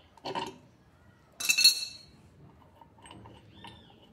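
One sharp metallic clink with a brief ring about a second and a half in, from an adjustable wrench working the nut that holds a washer-dryer's direct-drive motor rotor, followed by faint small knocks.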